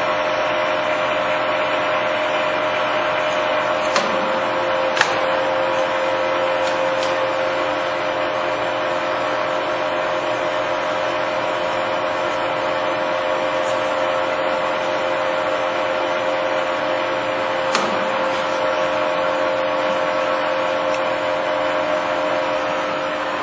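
Kingston HJ-1100 engine lathe running under power with its feed demonstrated: a steady gear whine from the headstock and gearbox, made of several even tones. A few sharp clicks come about four, five and eighteen seconds in.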